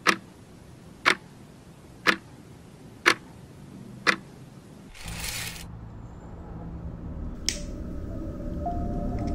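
Clock ticking: five sharp ticks evenly spaced one second apart. A short hiss follows about five seconds in, then a low rumble that grows louder, with steady tones of a music drone coming in near the end.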